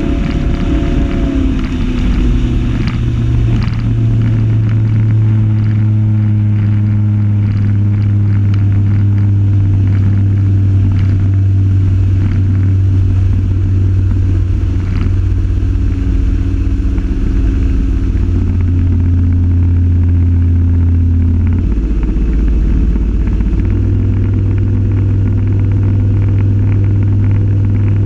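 RIB's motor running under way at speed, a loud steady drone. The engine note shifts about two seconds in and again around 22 seconds, then settles.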